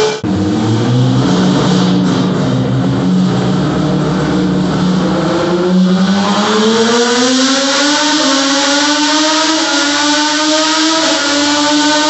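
Turismo Carretera Dodge race car engine running on a rolling-road dyno: it holds steady revs at first, then the revs climb smoothly from about six seconds in and hold at a higher pitch.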